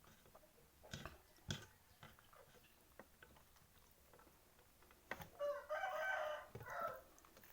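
A rooster crowing once, a call of a few linked parts lasting nearly two seconds, starting about five seconds in. Before it come two short clicks.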